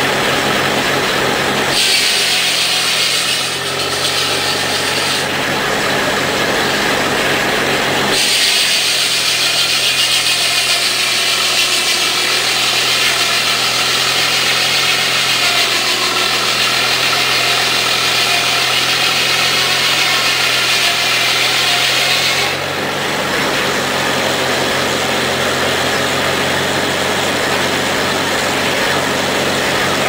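A sawmill's large circular saw cuts through a log on the carriage. There is a short cut about two seconds in, then a long steady cut from about eight seconds until about twenty-two seconds, when it stops. The mill machinery keeps up a steady hum underneath.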